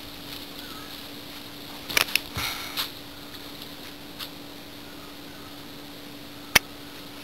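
Steady low hum and hiss with a few sharp clicks and taps, the loudest a single sharp click about six and a half seconds in: handling noise from a handheld camera.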